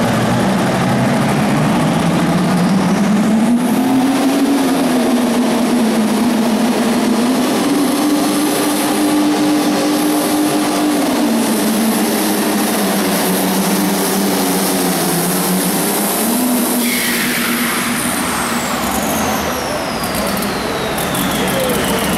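Turbocharged diesel pulling tractor running flat out under load, its engine note wavering up and down as it pulls the sled. About three-quarters of the way in the engine backs off and a high whistle falls slowly: the turbocharger spooling down at the end of the pull.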